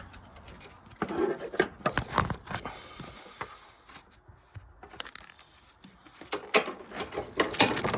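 Irregular clicks, taps and rustling of close-up hand work: a test light probe and hands working at a relay and fuse box. The noise comes in two busy stretches, about a second in and again near the end, with a quieter spell between.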